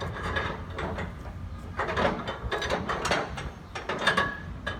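Truck-side tarp winch being cranked by hand with a crank bar, its ratchet clicking in an uneven run as the winch strap is drawn tight on the rear tension arm.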